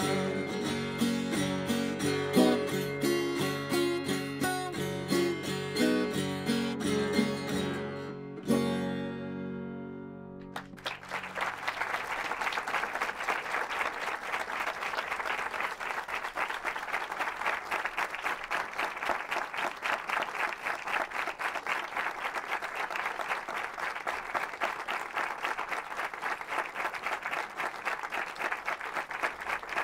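Acoustic guitar playing the closing bars of a song, ending on a final strum that rings out and fades about ten seconds in. Then steady applause for the rest.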